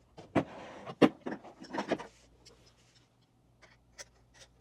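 Camera rig parts being handled and fitted: a few sharp clicks and knocks, the loudest about a second in, over a rubbing, sliding noise in the first two seconds, then a few light taps near the end.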